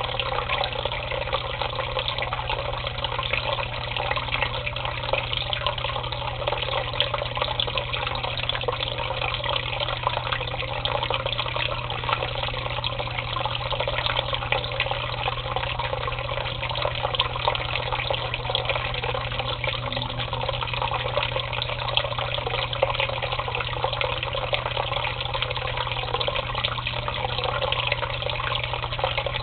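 Tap water running steadily and splashing into a shallow sink basin.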